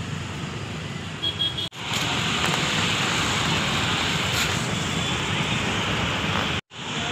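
Steady hiss of road traffic, getting louder about two seconds in and cutting out briefly near the end.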